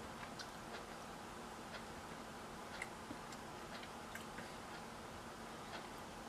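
Faint, irregular clicks and taps of a spoon against a metal food can as canned pasta is eaten straight from the can, over a steady low hum. The loudest click comes about three seconds in.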